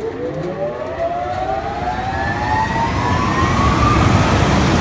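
Twin City 20 hp steel exhaust blower with a three-phase electric motor spinning up just after switch-on: a whine climbs steadily in pitch while the rush of air grows louder as the fan comes up to speed. Near the end the whine fades, leaving a steady rush of air.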